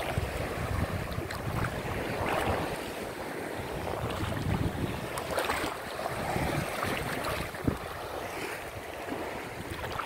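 Shallow sea water sloshing and small waves lapping around someone wading out, with a few light splashes, under wind buffeting the microphone.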